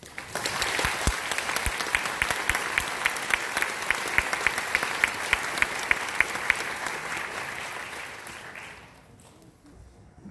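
Audience applauding, with one person close by clapping at about three claps a second; the applause dies away near the end.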